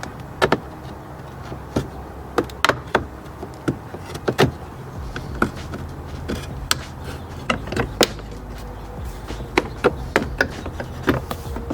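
Plastic pry tool working the silver trim piece off a BMW F30's inner door pull handle: irregular sharp clicks and taps as the trim and its clips are worked loose, over a steady low hum.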